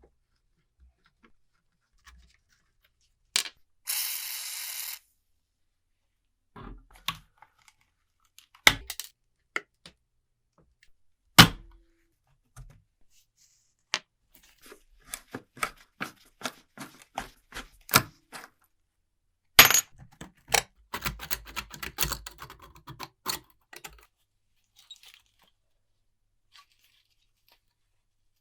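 Small metal parts of a rusty old alarm clock being handled at the bench: scattered sharp clicks and clinks, with a rasping hiss lasting about a second around four seconds in. A dense run of light taps and rattles follows in the second half, then stops.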